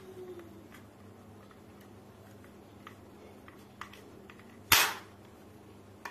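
Glock 18 alloy spring airsoft pistol firing once with no BB: a single sharp snap and puff of air as the spring drives the piston forward, about three-quarters of the way in. A few light plastic clicks from the pistol being handled come before and after it.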